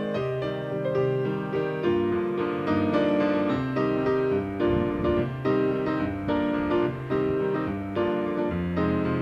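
Background music: a piano melody of separate notes.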